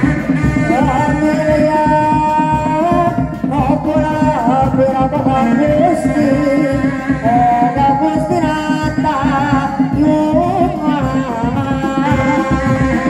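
Sundanese seni reak music played loud: dog-dog drums beating a fast, steady rhythm under a wavering, ornamented melody line.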